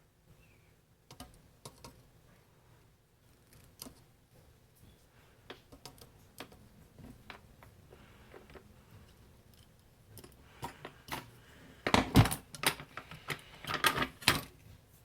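Scattered light clicks and knocks of tools and small parts being handled on a workbench, with a louder burst of clattering about twelve seconds in and another near the end.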